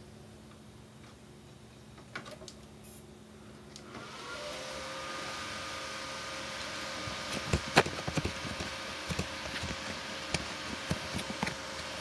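Dell Inspiron 530 desktop's fans spinning up as it powers on about four seconds in: a rising whine that settles into a steady whirring hum. From about halfway on, sharp clicks and knocks of handling inside the open case.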